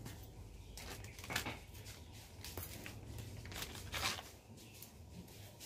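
Plastic bag and a small plastic sachet rustling and crinkling in short bursts as they are handled, loudest about a second and a half in and again about four seconds in, over a low steady rumble.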